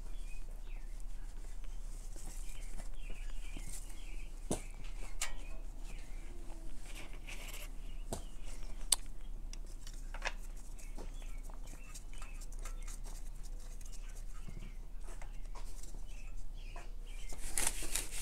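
Hand work around a motorcycle engine: scattered light clicks and knocks with rubbing as an oily spill is wiped up with a rag, plus faint high squeaky sounds now and then.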